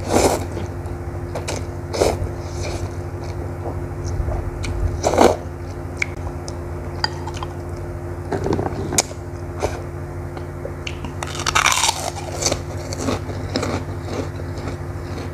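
Close-up slurping and chewing of instant noodles and meatballs, with several loud slurps and bites, the loudest near the start, about five seconds in and around twelve seconds in. A steady low hum runs underneath.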